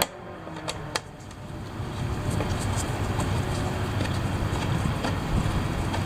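A few sharp clicks in the first second from a 5 mm Allen key working screws out of a plastic fairing panel, then a steady background rumble.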